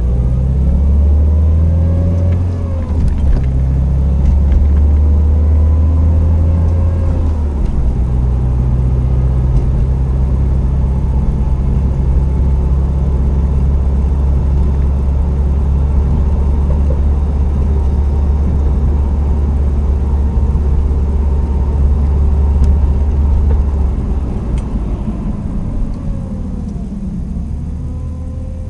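Subaru WRX STI (VAB) running with a steady low drone, overlaid by a whine that bends up and down near the start and again near the end. The whine is the power steering pump's noise, which comes back each winter with fluid leaking from the system and the fluid badly degraded.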